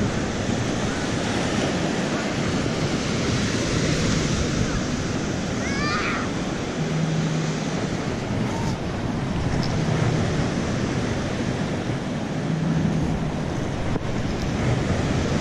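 Steady surf washing on a beach, mixed with wind rushing over the microphone.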